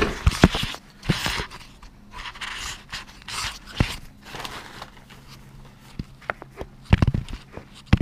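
Hands in nitrile gloves working the cable clamp on a jet pump's pressure-switch wiring: scrapes, rustles and scattered sharp clicks and knocks. A tight cluster of knocks comes about seven seconds in.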